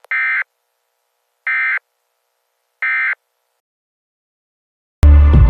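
Emergency Alert System end-of-message data tones: three short, identical buzzy chirps, each about a third of a second long, sent with even gaps and marking the end of the alert. Near the end a loud, low throbbing sound cuts in abruptly.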